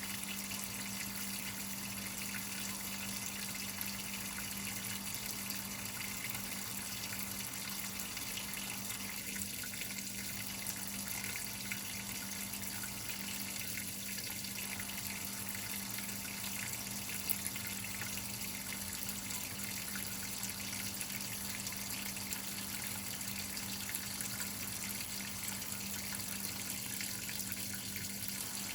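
Whirlpool top-load washing machine filling: water running steadily into the tub, with a constant low hum underneath.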